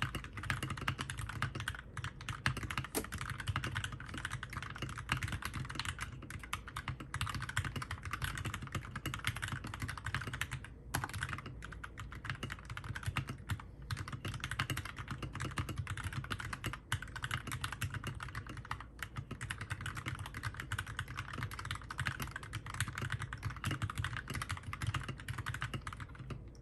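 Fast, continuous typing on a 60% mechanical keyboard with lubed and filmed Gateron Milky Yellow linear switches and Cherry-profile keycaps, with only a few brief pauses. The stabilized keys could use more lube.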